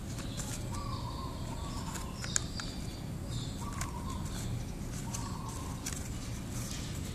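Crinkling and ticking of a sheet of origami paper being folded and creased by hand, with one sharper crack a little over two seconds in. A bird calls repeatedly in the background.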